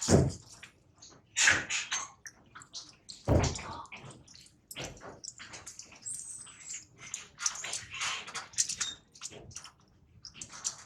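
Water splashing and sloshing in irregular bursts, as in a small tub or basin, the loudest splashes in the first few seconds. A brief high-pitched squeal comes about six seconds in.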